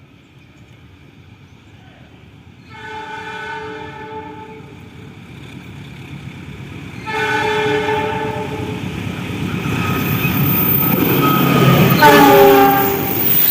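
Kamandaka passenger train's locomotive horn sounding a chord in repeated blasts: one about three seconds in, a louder one about seven seconds in, and a short, loudest one near the end that bends slightly down in pitch. A rumble of the approaching train grows under the last blasts.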